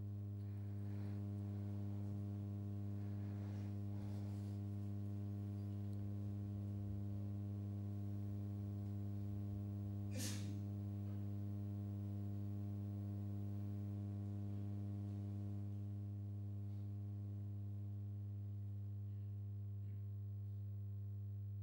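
Steady low electrical hum with a stack of overtones, a constant buzz. One short click about ten seconds in.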